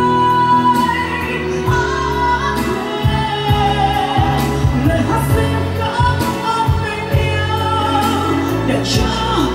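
A woman singing a Vietnamese pop ballad live into a microphone over loud amplified music with a steady beat.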